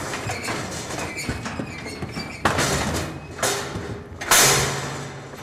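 Steel cattle squeeze chute rattling and clanging as its gates and lever are worked by hand. Three sharp metal bangs come about a second apart in the second half, the last the loudest and ringing on briefly.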